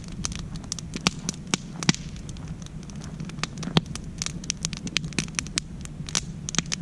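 Wood campfire of split logs crackling and popping: irregular sharp pops, several a second, over a steady low background, with a few louder pops standing out.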